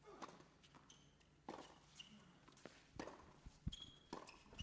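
Tennis rally on a hard court: racket strikes on the ball and ball bounces as a string of sharp pops, with a few short shoe squeaks.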